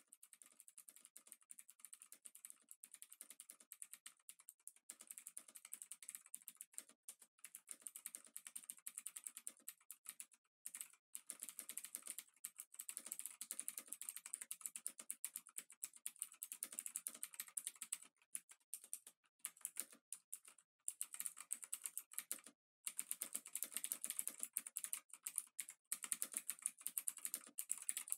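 Dense, rapid crackling clicks, thin and hissy, growing louder over the first ten seconds and cutting out abruptly for a split second several times.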